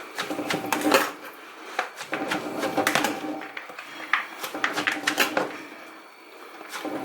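Pestle pounding shredded green papaya salad in a stone mortar: knocks come in quick clusters of three or four, with short pauses between clusters.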